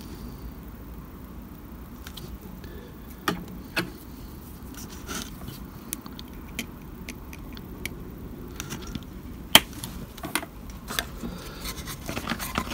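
Scattered light clicks and taps of hobby tools on a cutting mat: a steel rule and small plastic parts being handled. The sharpest click comes about three-quarters of the way through, and a cluster of handling noises follows near the end as the plastic model building is picked up.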